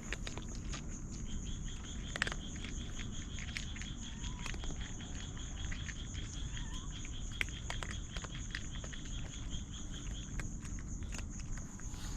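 Night insects chirping in steady, rapidly pulsing trills, one higher-pitched and one lower; the lower trill stops near the end. Scattered faint clicks and ticks sound close by.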